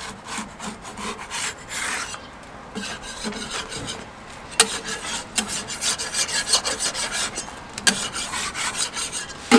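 Metal spatula scraping in quick repeated strokes across a jianbing griddle, loosening the thin crepe from the hot plate so it can be turned, with two sharper clicks of metal on the griddle about halfway and near the end.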